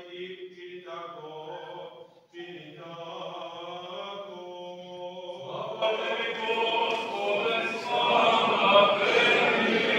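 Serbian Orthodox liturgical chant: a male voice holds long, steady sung notes, breaks off briefly about two seconds in, then resumes. About six seconds in, more voices join and the singing grows louder and fuller.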